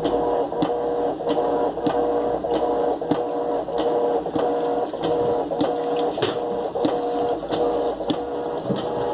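Electrolux LTE12 top-loading washing machine agitating laundry: a steady motor whine broken by a knock repeating about every two-thirds of a second.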